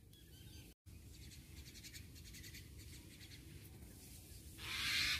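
Faint outdoor background noise with a low rumble, and a brief louder rustling hiss near the end.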